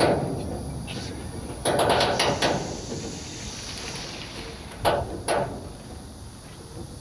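Sharp knocks and clanks over a low steady rumble: a cluster of them about two seconds in, and two single knocks close together about five seconds in.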